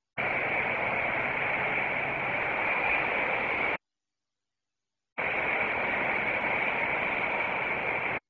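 Hissing static like an open radio channel, switching on and off abruptly: a stretch of about three and a half seconds, a second and a half of dead silence, then about three seconds more.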